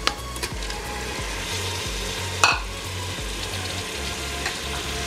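Masala and oil sizzling in a pressure cooker as raw chicken pieces are tipped in from a bowl, with a sharp knock about halfway through.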